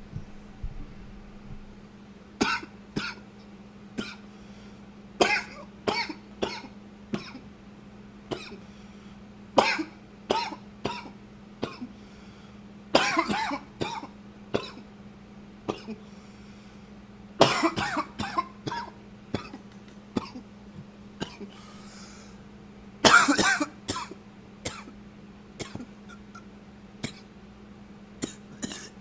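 A man coughing, close-miked, in repeated fits of several sharp coughs each with short pauses between, the heaviest fits around the middle and about two-thirds through.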